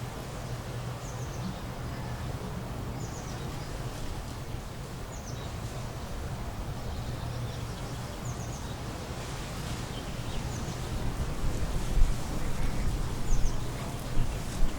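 Outdoor ambience: a steady low rumble with a short, high double chirp from a small bird or insect repeating about every one and a half to two seconds. Near the end come a few sudden low bumps, louder than the rest.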